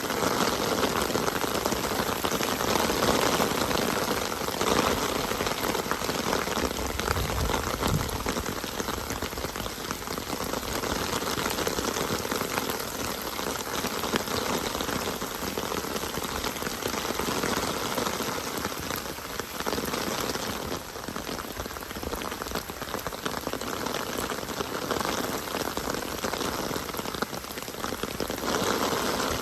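Steady rain falling on surfaces, an even hiss without let-up, with a brief low rumble about seven seconds in.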